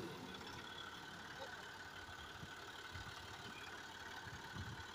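Faint, steady running of a Massey Ferguson 260 tractor's diesel engine.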